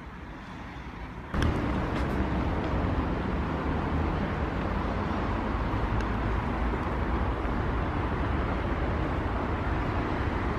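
Penny board wheels rolling over asphalt: a steady, rough rumble and hiss that sets in suddenly about a second in and keeps on without a break.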